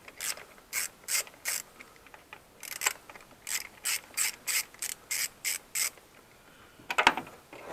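Socket ratchet with a T25 Torx bit clicking in short runs, two to three a second, as it undoes the screws holding the PCV valve on the engine, with a louder clatter near the end.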